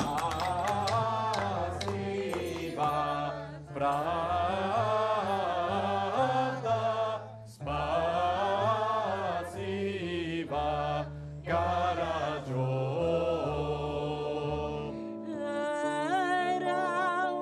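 Community choir singing together over a steady low instrumental accompaniment. About fifteen seconds in the low accompaniment drops out and a lighter passage follows.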